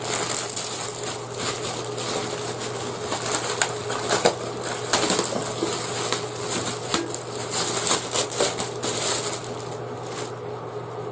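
Packaging wrap being crinkled and pulled apart while unwrapping a frying pan: a dense, continuous crackling of many small crackles. A low steady hum runs underneath.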